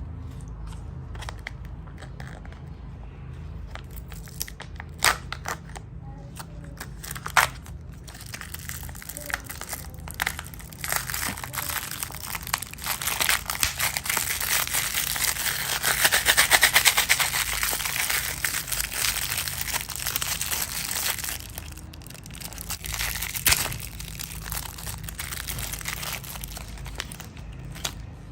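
Wrapper crinkling and tearing as it is pulled open by hand, with scattered sharp crackles; it is busiest and loudest about halfway through.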